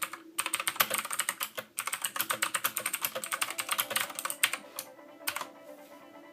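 Redragon K551 Vara mechanical keyboard with blue-style clicky switches being typed on: a fast run of clickety-clack keystrokes for about four seconds, then a few single keys and the typing stops.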